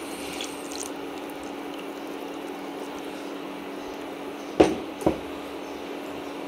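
Wet squishing of thick coconut milk being stirred into chana dal kheer in a pot, over a steady low hum. Two sharp knocks about half a second apart come near the end.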